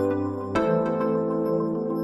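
Calm ambient background music: sustained chords with soft new notes entering about every second and a half.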